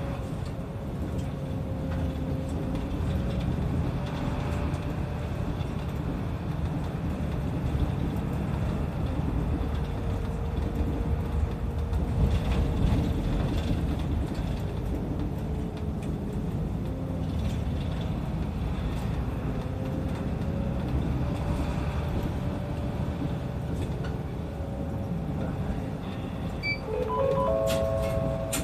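City bus engine and drivetrain running while driving, heard from inside the cabin: a steady low rumble with a tone that slowly rises and falls in pitch. Near the end a short electronic chime of a few stepped notes sounds.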